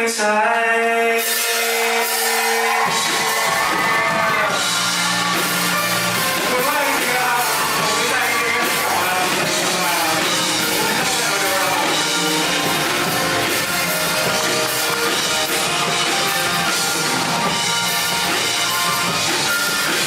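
Live rock band playing in a large hall: a held chord opens, then bass and drums come in about three seconds in and the full band plays on, with some shouting from the crowd.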